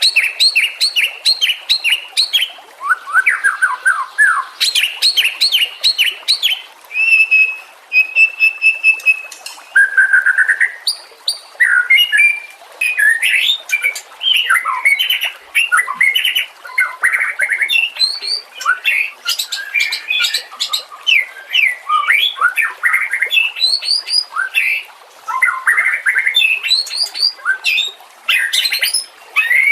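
White-rumped shama (murai batu) singing a long, varied song with hardly a pause: rapid runs of repeated chirps, sweeping notes that rise and fall, and a few held clear whistles.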